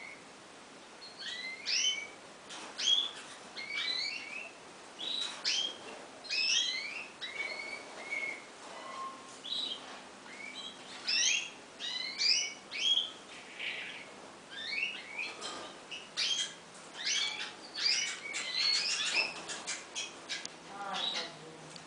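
Bananaquit (cambacica) calling: a run of short, high chirps and quick sweeping notes, coming every second or so.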